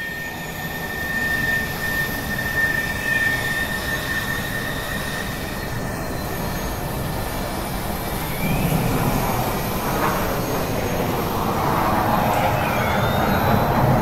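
Train sound effect: a rumbling, clattering run with a steady high tone and a few gliding tones above it. It gets louder from about nine seconds in.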